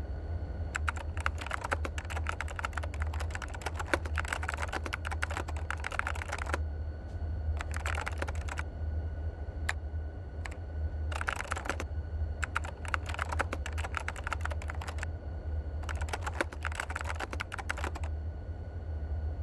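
Rapid typing on a keyboard, in bursts of several seconds broken by short pauses and a few single keystrokes, over a steady low hum.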